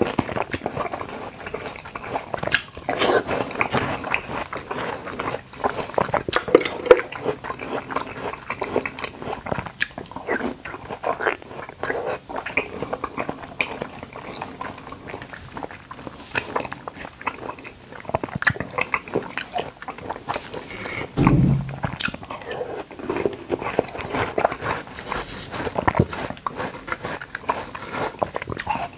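Close-miked chewing and biting of watermelon chunks and konjac jelly, with many short mouth clicks. One dull low thump comes about three quarters of the way through.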